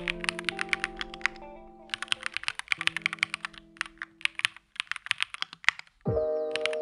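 Fast typing on an EPOMAKER Tide75 aluminium gasket-mount mechanical keyboard, a rapid run of key clicks with short breaks about a second and a half in and near the end, over background music that gets louder near the end.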